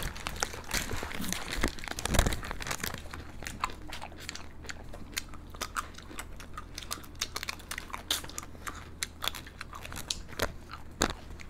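Close-up eating of ice cream bars and kulfi by several people: many short bites and wet mouth clicks. Wrapper crinkling in the first couple of seconds.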